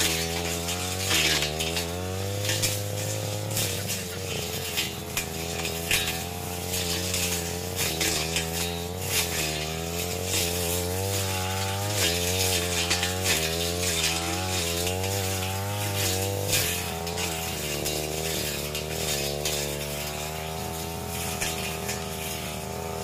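Backpack brush cutter's small petrol engine running under load, its pitch rising and falling over and over as the blade swings through thick undergrowth, with the snapping and rattling of stems and leaves being cut.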